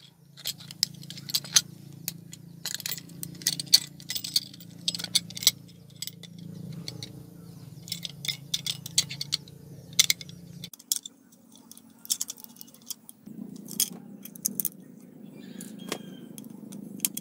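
Irregular metal clicks and clinks as a screwdriver and small steel parts knock against a hard drive's aluminium casing while it is taken apart, over a low steady hum that stops about two-thirds of the way through and comes back louder.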